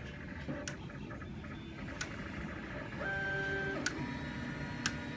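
Sharp, isolated clicks at irregular intervals, roughly one a second, with a short pitched tone about three seconds in.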